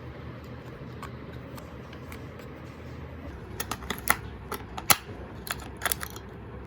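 A steady low hum, then a quick run of sharp clicks and taps from about halfway through, the two loudest around four and five seconds in.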